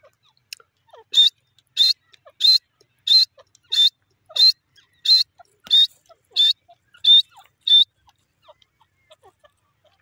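Grey francolin calling: a run of about eleven loud, high-pitched notes, evenly spaced at roughly one and a half a second. It starts about a second in and stops about two seconds before the end.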